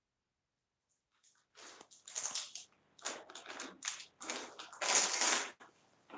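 Handling noise from a smartphone being picked up and turned: fingers rubbing and scraping close to its microphone, in irregular crackling bursts that start about a second in.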